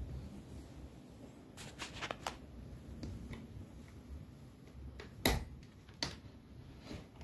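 A few short, sharp clicks and taps over a faint low rumble: a small cluster about two seconds in, and the loudest single click about five seconds in.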